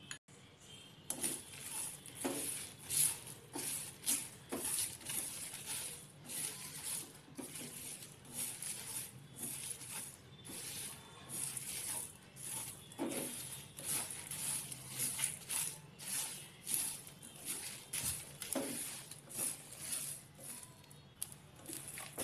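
Whole spices (coriander seeds, cumin, fennel, bay leaves, dried red chillies) stirred with a spatula in a hot dry pan, the seeds rattling and scraping against the pan in quick repeated strokes, about two a second, starting about a second in. The sound of dry-roasting the spices.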